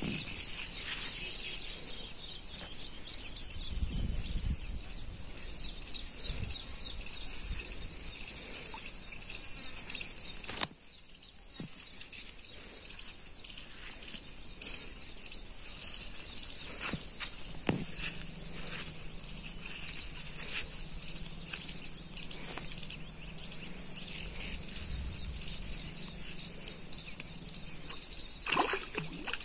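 Outdoor ambience of birds chirping and insects buzzing, with a single sharp click about ten seconds in and a faint low hum in the second half.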